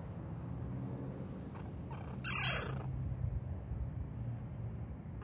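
Young marten kits calling: a low, steady hum-like sound, broken about two seconds in by one loud, shrill cry lasting about half a second.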